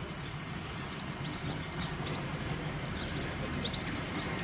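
A Class 150 diesel multiple unit approaching, its underfloor diesel engines a steady low drone that slowly grows louder as the train nears. Birds chirp now and then over it.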